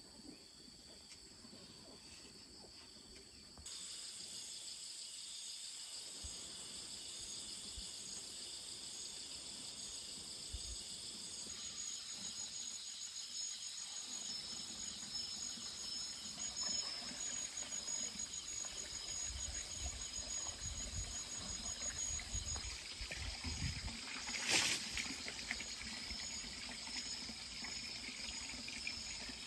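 A steady high-pitched chorus of insects trilling, which gets louder about four seconds in. Scattered low knocks and one sharp click come in the second half.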